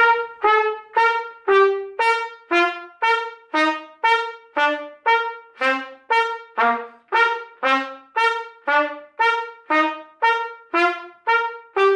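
Trumpet playing short, separate notes about two a second, each started by a push of breath with no tongue (breath attacks). A repeated upper note alternates with lower notes that step down and then climb back up.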